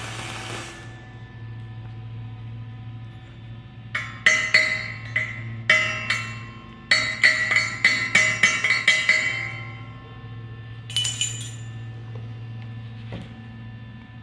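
A hammer strikes welded steel in two quick runs of sharp, ringing metallic clinks, over a steady low electrical hum. A hissing noise cuts off about half a second in, and a short hiss comes near the end.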